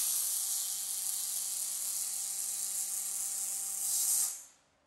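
MIG welding arc from a UR10 collaborative robot's welding torch laying a straight bead: a steady, high-pitched hiss with a faint hum under it, which cuts off suddenly about four seconds in as the weld ends.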